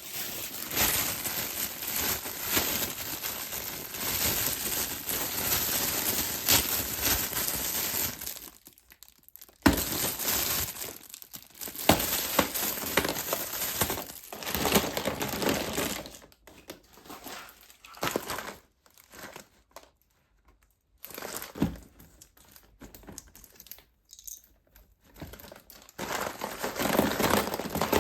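Plastic and foil wrappers of surprise eggs and blind packs being crinkled and torn open by hand, in stretches broken by short pauses. There are a few sharp clicks in between.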